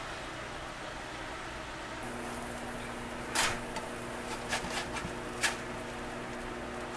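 Squash cakes sizzling on a stovetop griddle pan, with a spatula knocking and scraping against the pan four or five times in the second half as it slides under a cake.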